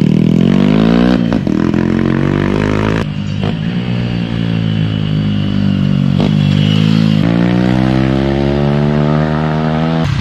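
Small single-cylinder drag-bike motorcycle engine revving as the bike accelerates, its pitch climbing steadily and then dropping sharply, about three times over.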